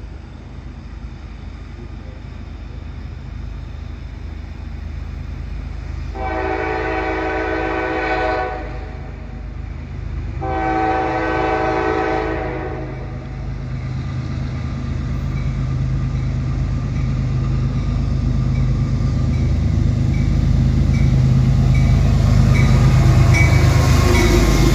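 An oncoming CSX freight led by a GE ES40DC diesel locomotive sounds its K5LA five-chime air horn in two long blasts, about six and ten seconds in, each lasting about two seconds. The diesel engines' low rumble grows steadily louder and is loudest near the end as the locomotives pass close by.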